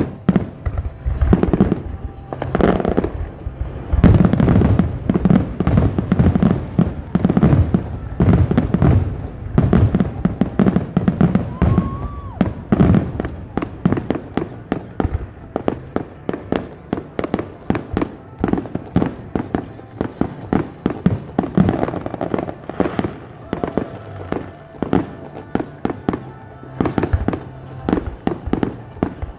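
Fireworks show: a steady barrage of aerial shell bursts, with heavy booms through the first dozen seconds and then many rapid, sharp cracks. Music plays underneath.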